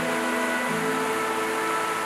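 Background music of slow held notes, the chord changing under a second in, over a steady rushing of mountain stream water.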